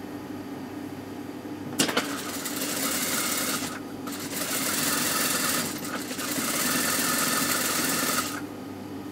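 Sewing machine stitching a seam through cotton fabric in three runs with two short breaks, starting with a click about two seconds in and stopping shortly before the end. A steady low hum runs underneath.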